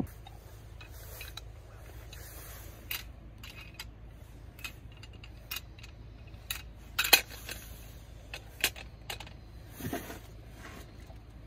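Metal cookware being handled and set onto a small gas-cartridge camping stove: scattered light clinks and knocks of metal on metal, the loudest about seven seconds in.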